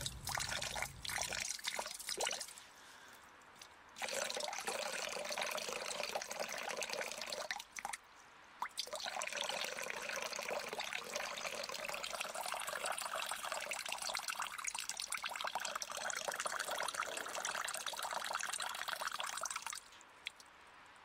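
Water running and splashing in a steady stream, dropping lower for a stretch about two to four seconds in and briefly around eight seconds, then fading out near the end.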